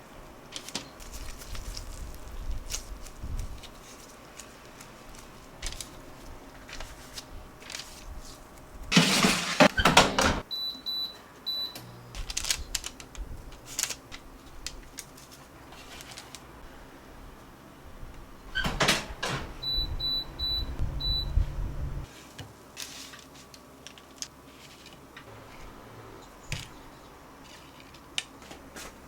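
Household handling sounds: scattered light clicks and knocks, with two louder clattering bursts. Each burst is followed by a short run of high electronic beeps from an appliance's keypad, one run about 11 seconds in and another around 20 seconds.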